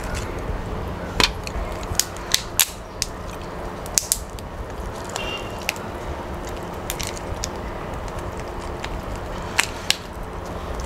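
Cooked lobster shell cracking and snapping as it is broken apart by hand, in a handful of sharp cracks, most between about one and four seconds in and two more near the end. A steady low hum runs underneath.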